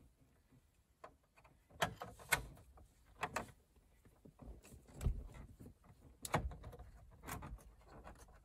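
Scattered light clicks and knocks from a screwdriver working the small Torx screws of a plastic dashboard instrument-cluster bezel, with about six sharper taps spread through.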